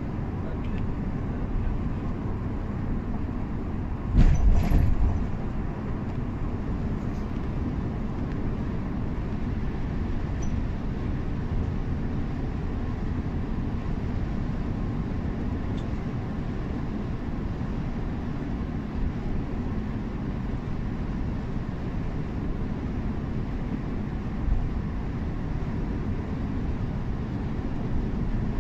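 Intercity coach driving along a highway, heard from inside at the front: a steady low rumble of engine and tyre noise. About four seconds in there is a loud thump lasting about a second, and a smaller knock comes near the end.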